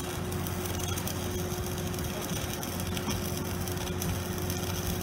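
Stick (SMAW) arc welding a steel pipe joint: a continuous frying crackle of the arc. Underneath it, the steady drone of an engine-driven welder's Perkins turbocharged engine running under load.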